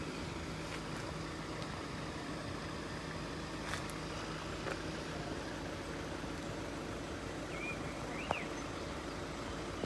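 Steady background of road vehicles idling at the closed crossing, with a constant low hum under it. Two short high chirps come near the end.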